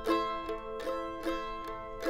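Background music: a plucked string instrument picking an even run of notes, about two or three a second, over a low held tone.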